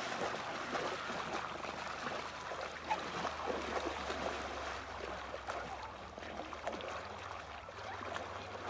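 Horse wading through shallow lake water, its legs splashing and sloshing in a continuous run of small splashes.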